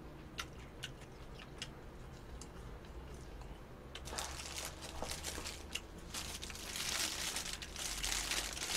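Paper food wrapping crinkling and rustling as it is handled and unwrapped. It starts about halfway through and grows louder toward the end, after a few faint clicks.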